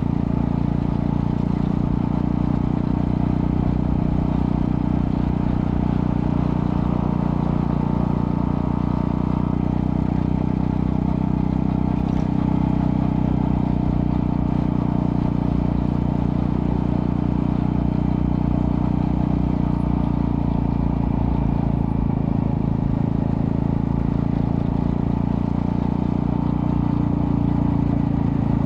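Honda Astrea Prima 110cc four-stroke single-cylinder engine running steadily through a custom underbelly exhaust with resonator, its low note holding an even pitch and level throughout.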